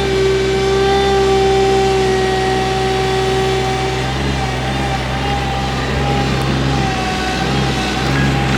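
Rented excavator running with a steady engine hum and a high whine; the loudest part of the whine stops about four seconds in, and a higher tone wavers on after it.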